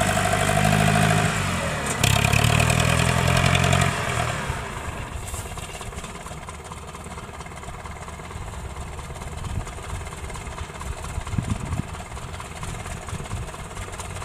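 Combine harvester engine running loudly with a strong, steady engine note for about four seconds, dipping briefly and rising again midway, then dropping to a quieter, steady running drone.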